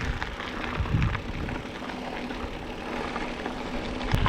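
Mountain bike being ridden on a wet, muddy trail: a steady rumble of riding noise on a helmet- or bike-mounted action camera, with a thump about a second in.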